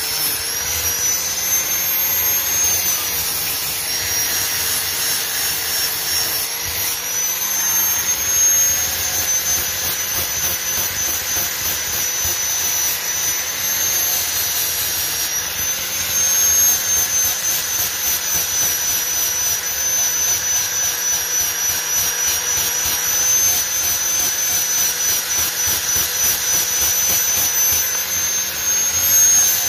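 Electric angle grinder running with a steady high whine, its abrasive disc grinding the surface of a steel claw hammer. The whine dips briefly in pitch a few times.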